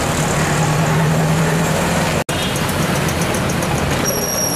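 Street traffic with motor vehicle engines running close by. A steady engine hum stands out in the first two seconds, the sound drops out for an instant a little past halfway, and a thin high steady tone comes in near the end.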